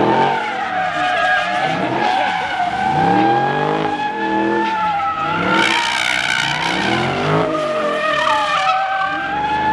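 A car drifting: tyres squealing in one long, wavering screech while the engine revs rise and fall over and over, about once every second or so.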